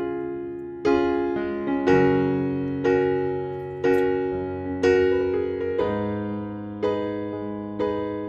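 Background piano music: a chord struck about once a second, each one dying away before the next.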